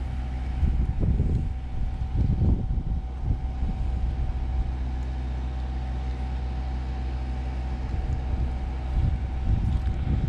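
A steady low engine-like hum with a faint steady whine above it, and wind gusting on the microphone now and then.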